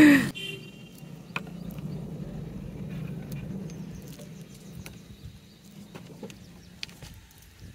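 Faint scattered crackles and clicks of hands breaking apart dried smoked fish, over a low steady hum that fades out near the end.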